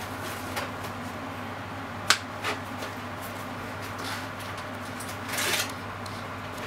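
Silicone-tipped kitchen tongs stirring a cream sauce in a nonstick frying pan: a sharp click about two seconds in, a softer knock just after, and a short scraping swish near the end, over a steady low hum.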